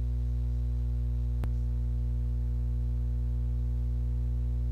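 Steady electrical mains hum, a low buzz with several overtones, with one faint click about a second and a half in.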